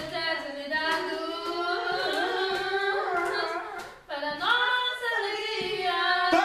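A group of voices, women's most prominent, singing a long, drawn-out melody without clear words, breaking off briefly about four seconds in and then coming back louder.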